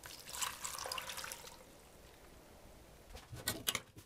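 Water poured from a drinking glass into a stainless-steel pot of cut vegetables, splashing for about the first second and a half. Near the end, a metal spoon clinks against the pot a few times.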